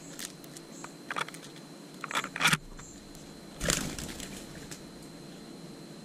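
Mourning doves pecking seed from a plastic dish: scattered sharp taps and crackles, loudest a pair about two and a half seconds in, with a brief louder rustle a little past halfway.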